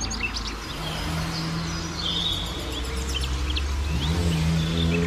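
A motor engine running steadily, its pitch rising about four seconds in, with small birds chirping throughout.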